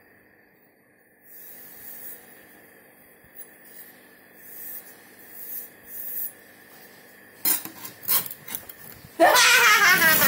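A kitchen knife blade stroked across a sharpening stone: several short, quiet scraping strokes, then a few knocks as the stone is handled, and a loud voice cutting in near the end.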